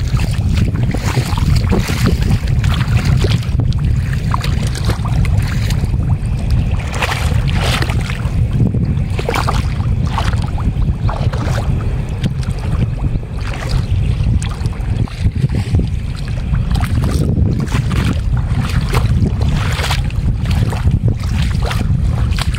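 Wind buffeting the microphone with a heavy, steady low rumble, over repeated splashing and sloshing of feet wading through shallow muddy water.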